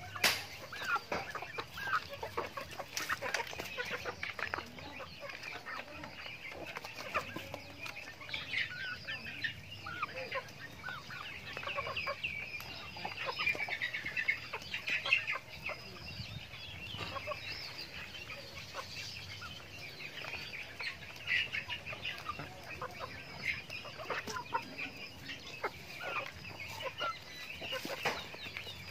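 A flock of chickens clucking and making short calls as they peck feed from a trough, with scattered sharp clicks of beaks striking the feeder.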